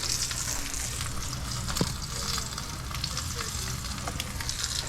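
Tomahawk roast searing in a smoking-hot pan, its rendering fat sizzling steadily with scattered crackles and one sharper pop a little under two seconds in.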